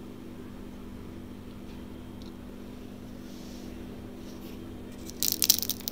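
Steady low hum, then a little after five seconds in a quick run of sharp clinks and scrapes of a metal fork against a ceramic plate as it cuts into a slice of baklava.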